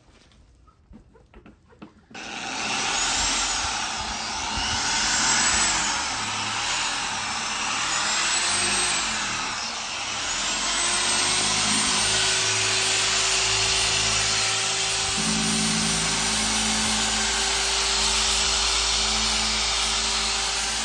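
Dual-action polisher with an orange foam pad running across a car's painted fender, starting about two seconds in and continuing steadily, as it works a one-step polish to remove swirl marks. Background music plays over it.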